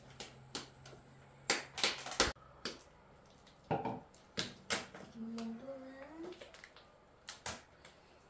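Irregular knocks and clicks of objects being handled in a small room, with a short voice sound rising in pitch about five seconds in.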